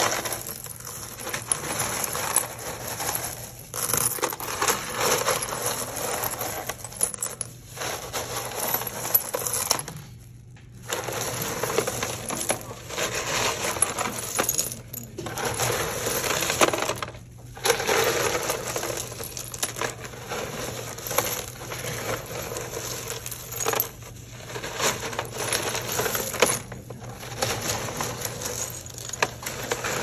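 Broken ceramic tile shards clinking and rattling against each other as a hand stirs and scoops through a tub full of them, a dense, continuous clatter with two short breaks, about ten and seventeen seconds in.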